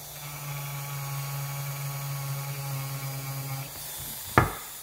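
Small rotary tool running with a steady whine while its felt buffing bit is pressed into a bar of polishing compound to load it. The whine drops away a little before the end, followed by one sharp knock.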